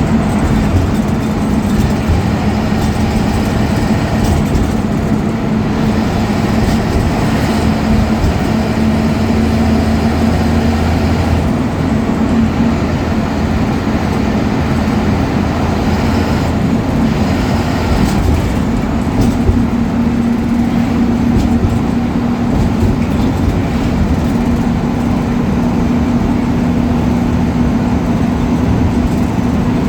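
Ashok Leyland BS4 bus's diesel engine running steadily under way, its engine note stepping up slightly in pitch a little past the middle, over a continuous rumble.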